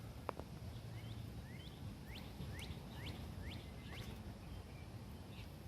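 A bird calling: a run of about eight short, rising chirps, roughly two a second, over a low steady hum.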